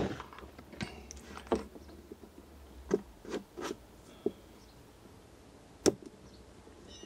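Small clicks and rubbing from handling wires and a three-port plastic lever connector as a wire is pushed in, with a scatter of short clicks, the sharpest about six seconds in.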